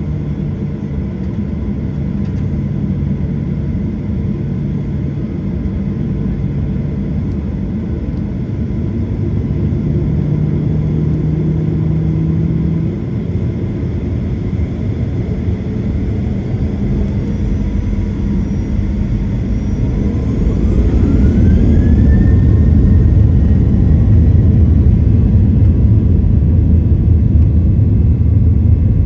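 Inside the cabin of a Boeing 737-800, the CFM56-7B engines hum steadily at low power. About two-thirds of the way in they spool up to takeoff thrust: a rising whine climbs and levels off, and the low rumble grows louder and stays loud.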